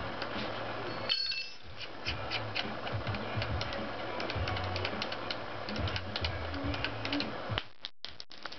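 Background music with a beat, running on under the work, with brief dropouts about a second in and again near the end.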